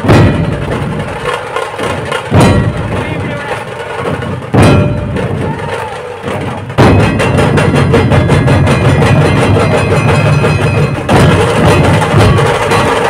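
A large ensemble of Marathi dhol drums beaten with sticks. First come three heavy unison strikes about two seconds apart. From about seven seconds in, the drumming turns fast and continuous, with another big accent a few seconds later.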